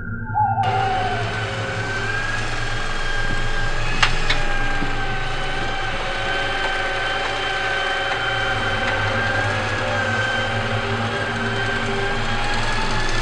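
Huina RC excavator running its electric motors and gearboxes: a steady mechanical whine that starts about half a second in as it swings its arm and tracks along, with a sharp click about four seconds in.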